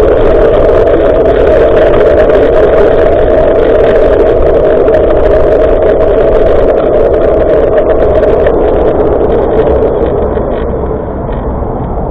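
Loud, steady rush of wind buffeting the microphone of a Denver ACK-8058w action camera on a moving bicycle. It eases off about ten seconds in.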